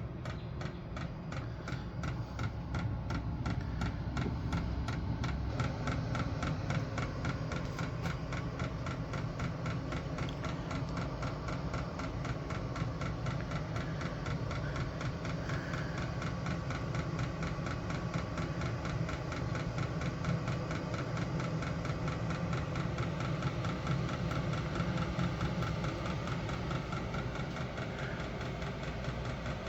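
Vevor-type Chinese diesel air heater starting up: its combustion fan and burner run with a steady rumble while the fuel dosing pump ticks rapidly and evenly.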